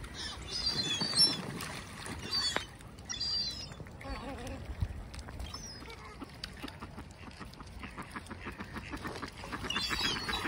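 Waterbirds calling in short, high-pitched notes, in bursts near the start and again near the end, with a run of quick small clicks in between.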